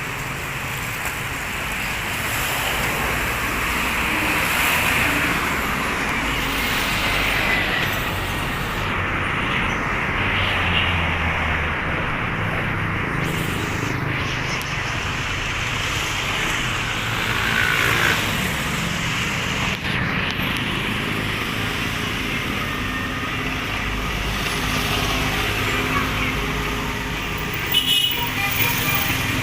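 Street traffic: a steady wash of passing cars and other motor vehicles with engine hum.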